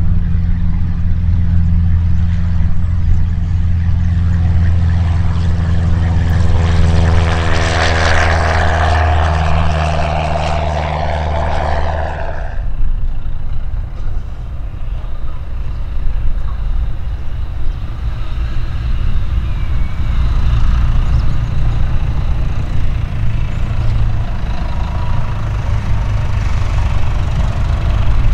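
Single-engine propeller light aircraft's piston engine running at high power as the plane rolls along the runway, swelling louder as it passes, then breaking off abruptly about 12 seconds in. A fainter, steady low engine drone follows.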